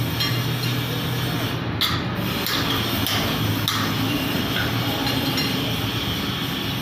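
Workshop noise: a steady low hum with a few light, scattered knocks, typical of steel rod being struck with a hammer.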